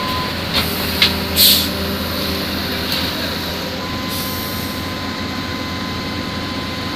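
A heavy flatbed truck's diesel engine running steadily under an excavator load. Three short sharp hisses come in the first second and a half.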